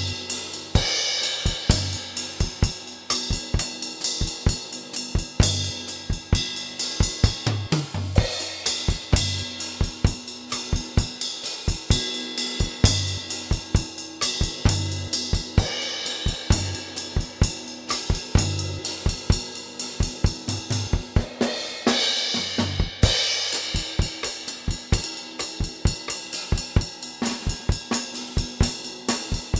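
Acoustic drum kit played alone in a steady groove of cymbal, snare and bass drum, with brighter cymbal crashes about a second in and again about two-thirds of the way through.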